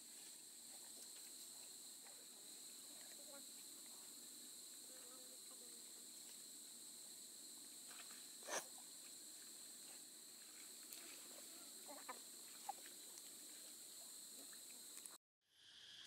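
Faint, steady, high-pitched buzzing of insects, with one brief sharp sound a little past halfway and a few fainter ticks after it. The sound cuts out for a moment near the end.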